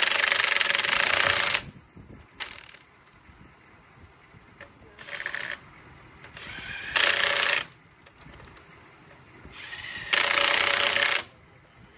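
Impact wrench hammering in four short trigger bursts, one long and three shorter, with quiet gaps between them.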